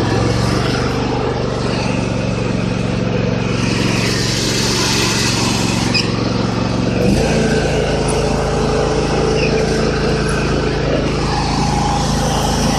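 John Deere L130 riding lawn mower engine running steadily just after starting. About seven seconds in, its note changes abruptly to a different steady drone.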